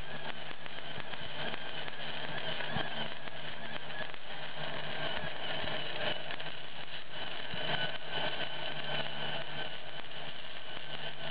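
Flux-core wire-feed welding arc crackling steadily through one continuous bead from a spool gun powered by two car batteries at 24 volts, with a steady hum underneath. The welder finds the weld a little cold and thinks the batteries are running down.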